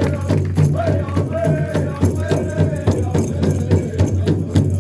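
Hoop dance song from a powwow-style drum group: a drum struck in a steady, even beat under chanted singing that glides in pitch.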